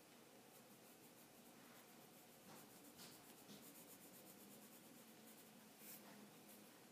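Faint scratching of a wooden graphite pencil shading on Bristol paper, in quick repeated strokes.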